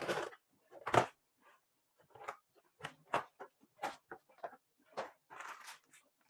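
Hands handling plastic desiccant boxes and desiccant packaging: a string of irregular clicks and knocks, the loudest about a second in, with a brief rustle near the end.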